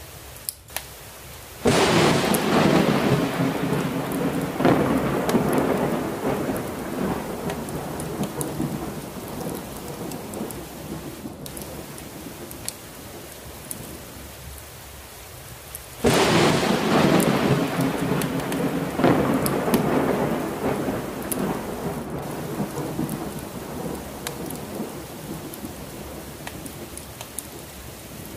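Steady heavy rain with two thunderclaps, one about two seconds in and another about halfway through. Each starts suddenly, swells again a few seconds later and rumbles away over several seconds.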